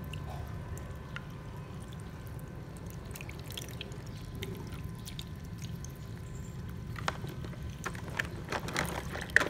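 Tap water running into a sink full of plastic toys as they are rubbed and handled, with a few light clicks of plastic knocking together, more of them near the end.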